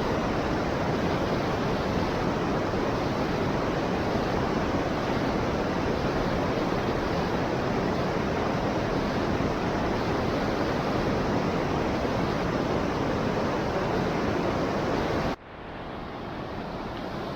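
Waterfall rushing as a steady, loud roar of falling water. Near the end it drops suddenly to a quieter rush.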